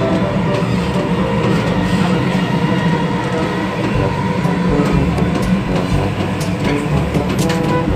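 Dubai Metro electric train running between stations, heard from inside the carriage as a steady, even rumble.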